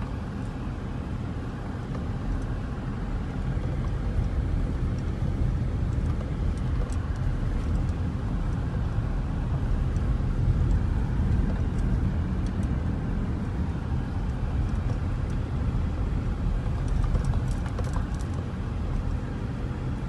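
Car engine and road noise heard from inside the cabin while driving: a steady low rumble.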